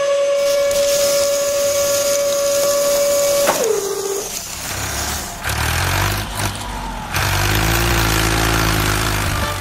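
Small electric motor of a toy dump truck whining steadily as the bed tips, dropping in pitch and stopping about three and a half seconds in. Sand then slides off with a hiss, and a lower motor rumble runs through the second half.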